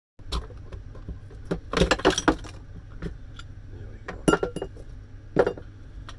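Hard knocks with clinking and clattering of breaking pieces, in four main bursts, the loudest about two seconds in and just past four seconds. Parts of a scrapped garden shredder are being smashed apart.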